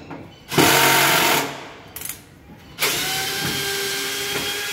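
Cordless drill-driver running twice while undoing the fasteners on a washing machine's lower front panel: a short loud burst about half a second in, then a longer, steady whirr from about three seconds in.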